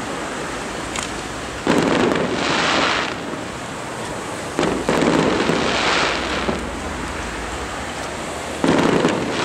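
Aerial firework shells bursting, three booms about three seconds apart, each followed by about a second of higher-pitched crackle from glittering stars.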